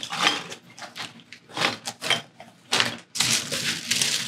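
Cardboard box and packing peanuts rustling and scraping as they are handled by hand during unpacking, in irregular bursts that grow busier near the end.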